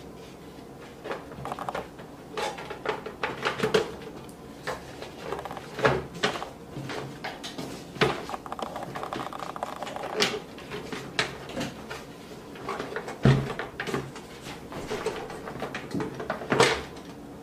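Metal outer casing of a Zojirushi hot water boiler being slid down over its plastic internals and worked into place by hand: irregular clicks, knocks and scraping, with the loudest knock about three-quarters through.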